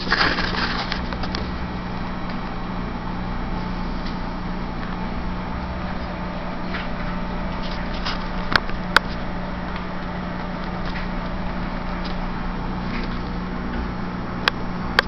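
Steady low electrical hum throughout. A short scuffling noise comes in the first second, and two pairs of sharp clicks come, one about halfway through and one near the end.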